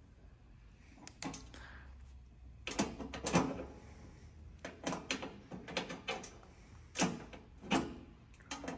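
Scattered sharp metallic clicks and taps, about a dozen, from a screwdriver and small screws being worked at the stainless steel top panel of an espresso machine.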